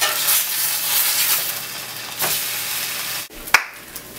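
Baloney slices sizzling in a hot metal skillet, a steady hiss of frying. About three seconds in it drops suddenly to a quieter sizzle, with a single sharp click just after.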